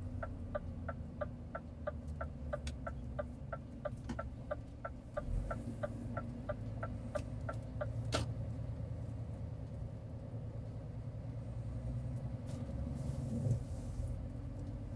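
Turn-signal flasher ticking inside a truck cab, about four clicks a second, while the truck makes a turn; it stops about eight seconds in, ending on a sharper click. A low, steady engine hum runs underneath.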